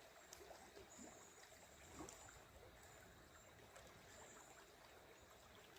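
Near silence: the faint, steady rush of river water over rapids, with a few faint, short, high-pitched tones in the middle.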